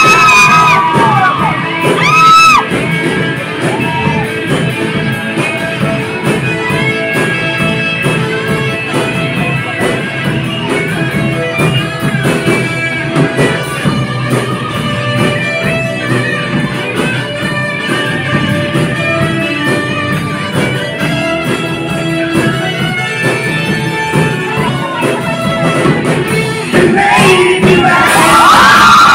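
Live band playing loud rock music on drum kit and electric guitars. A singer shouts and sings over it at the start and again near the end, where it gets louder.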